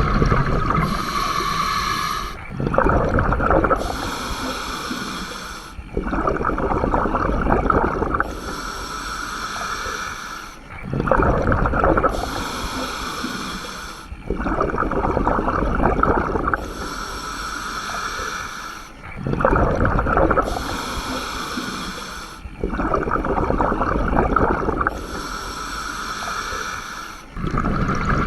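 Scuba diver breathing through a regulator: a hissing draw on the regulator alternates with the rumbling gurgle of exhaled bubbles, in a slow, even rhythm of about one breath every four seconds.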